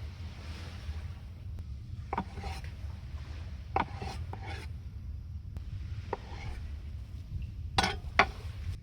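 Several short scraping strokes on wood, about seven in all, the last two loudest, over a steady low rumble of wind and sea.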